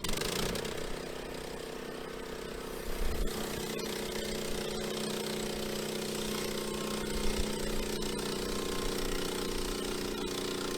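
Gas engine of an EZ Boardwalk Jr. band sawmill running steadily, with a slight rise in loudness about three seconds in.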